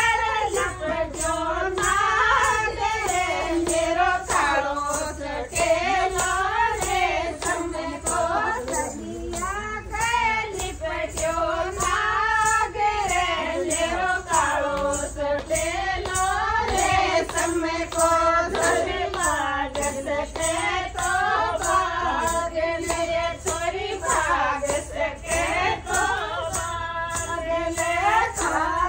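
A group of women singing a desi folk song together in one melodic line, with steady hand clapping about twice a second keeping the beat for the dancers.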